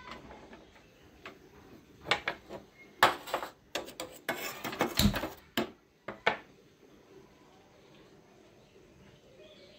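A stainless-steel gas stove being lit with a stick lighter under a steel pot: a handful of sharp clicks and metal clanks between about two and six seconds in, the loudest a thump about five seconds in.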